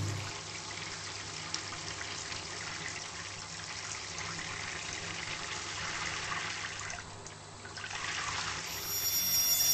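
Water running, a steady rushing trickle that dips briefly near the end.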